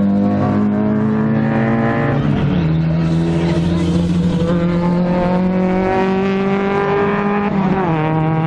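Race car engines running at high revs, their pitch holding steady, dropping about two seconds in and dipping and rising again near the end.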